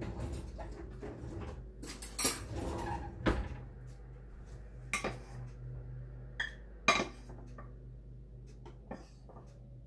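Kitchen utensils clattering and clinking as measuring spoons and cups are picked up and handled, with a few sharp clinks, the loudest about seven seconds in.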